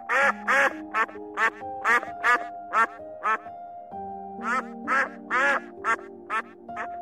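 Domestic white geese honking in short repeated calls, about three a second, with a brief pause near the middle. Soft background music with held notes plays underneath.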